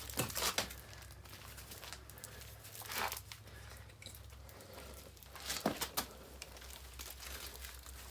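Irregular rustling and crinkling rubs as a water-filled plastic well drop pipe is hauled up hand over hand, with a steady low hum underneath.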